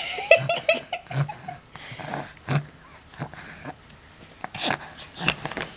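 A baby's small vocal sounds and breaths while he sucks on his sock-covered foot, with a quick run of short pitched squeaks less than a second in.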